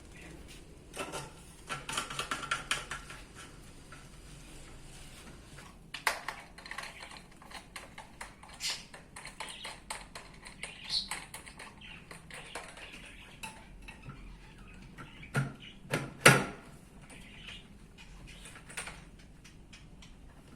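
Clicks, rattles and knocks of electric-fan parts being handled and fitted together during assembly. A rattling patch about two seconds in; two sharp knocks about three quarters of the way through are the loudest.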